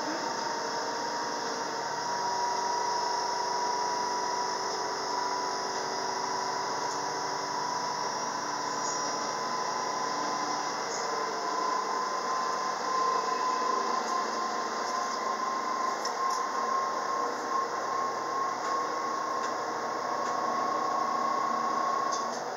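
Inside an MRT300 diesel railcar under way: a steady whine from the drive slowly rising in pitch as the car gathers speed, over the running noise of wheels on rail. The whine cuts off near the end.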